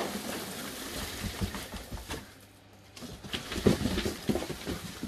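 Foam packing peanuts and cardboard rustling and scraping as hands dig into a box of loose fill and pull an inner cardboard box out. A brief lull about halfway through, then a run of knocks and rustles.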